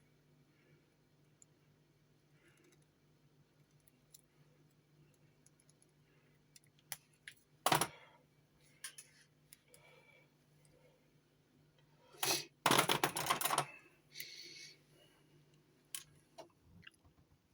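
Small clicks and taps of hand tools and wire being handled while wiring an amplifier's turret board, with a sharper click about eight seconds in and a second-long rustling scrape around thirteen seconds in. A faint steady low hum runs underneath.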